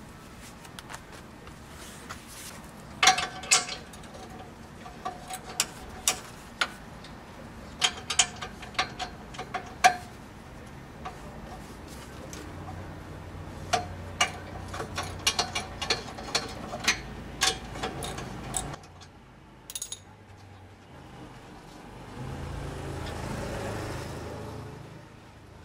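A socket wrench undoing the rusty nuts on an exhaust pipe flange, giving an irregular series of sharp, ringing metallic clicks for about fifteen seconds. Near the end there is a few seconds of scraping at the flange.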